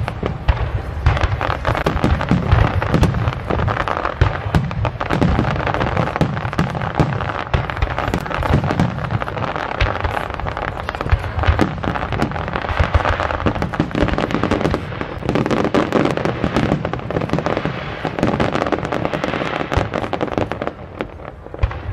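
Aerial fireworks shells bursting in quick succession, many bangs and crackles overlapping, with a brief lull near the end.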